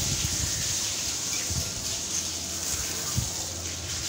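Water from a hose spraying and splashing onto a motorcycle: a steady hiss with irregular low rumbling underneath.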